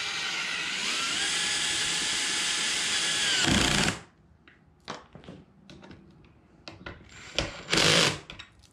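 Cordless drill with a socket extension driving the transom-wheel bracket bolts: the motor spins up, runs steadily for about four seconds, goes heavier and lower as the bolt pulls tight, then stops. Small clicks and a brief second burst follow near the end.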